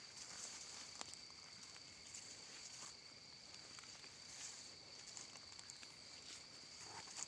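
Near silence: a faint steady high-pitched whine, with scattered soft rustles and a light click about a second in.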